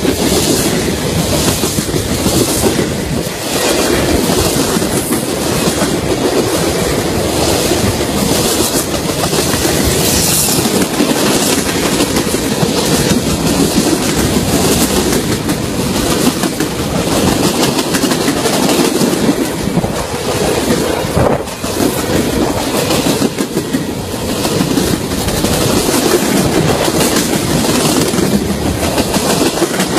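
Cars of a manifest freight train rolling past at close range: a loud, steady rumble of steel wheels on rail, with the wheels clacking over the rail joints.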